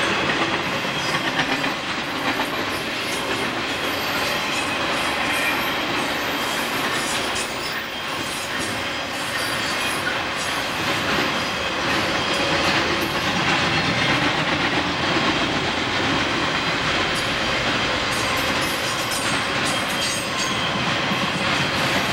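Piggyback freight train of flatcars carrying highway semi-trailers rolling past: a steady rumble of steel wheels on the rails with repeated clicks as the trucks pass.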